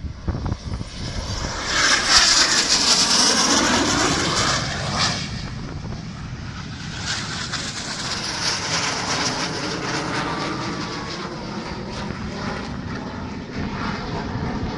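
A military aircraft's engine during a low pass at an air show: loudest about two to four seconds in, its tone shifting as it passes, then a steady drone as it flies away.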